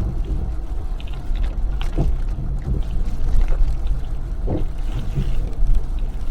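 Car driving on a wet road in rain: a steady low rumble of engine and tyres, with scattered short splashes and ticks.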